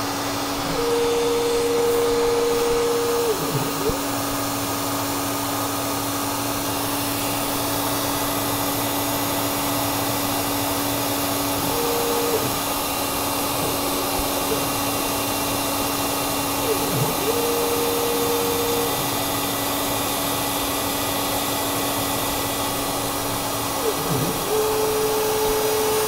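DIY CNC router milling a circuit board: the spindle motor runs steadily throughout. About four times, a second, higher steady whine from the axis motors comes in and drops out, sliding in pitch as each feed move starts and stops.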